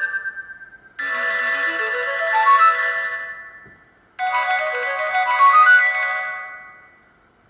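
Sony Ericsson W810i mobile phone playing short polyphonic ringtones. The tail of one tone fades out. Then a tune of quickly rising notes starts suddenly about a second in, and a second, different one starts about four seconds in; each fades away after two to three seconds.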